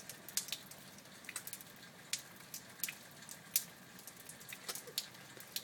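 Rainwater dripping and splashing in irregular single drops over a faint steady hiss of falling rain.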